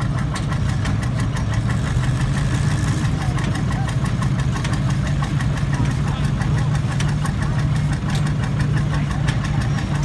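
Vintage farm tractor engine running steadily, a low drone under a fast, even ticking.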